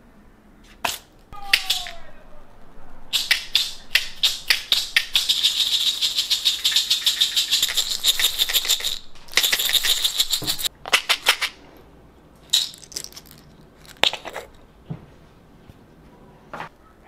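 Toothpicks rattling inside a plastic toothpick dispenser as it is shaken and tipped: a fast run of clicks lasting several seconds, then a few separate clicks.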